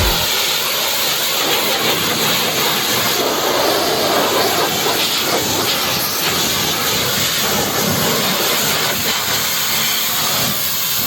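Pressure washer spraying water in a steady, even rush of spray.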